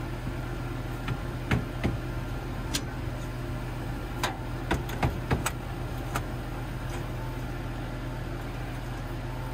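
About nine sharp knocks at irregular intervals over the first six seconds, nails being driven into plywood sheeting, over a steady low machine hum.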